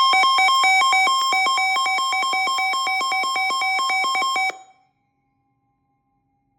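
Electronic emergency alert tone: a loud two-pitch alarm that trills rapidly like a telephone ringer, signalling an incoming severe weather warning. It cuts off suddenly about four and a half seconds in, followed by silence.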